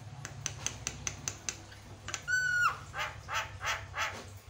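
Javan myna singing: a run of quick clicks, about five a second, then one clear whistle that drops in pitch at its end, followed by a series of harsh, rasping notes. A steady low hum runs underneath.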